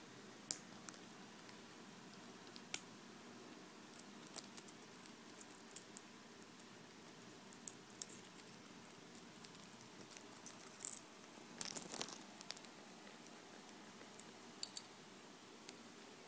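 Sun conure pecking and nibbling at a Mac keyboard's keys: scattered sharp clicks and taps, with a louder flurry of clicks a little past the middle.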